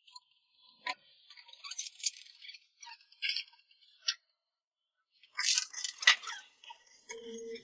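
Hand tools and small metal parts clinking and rattling in short clusters, with a few sharp clicks.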